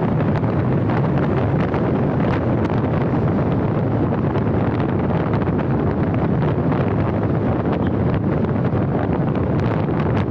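Steady wind rumble on the microphone of a camera on a moving car, mixed with road and tyre noise.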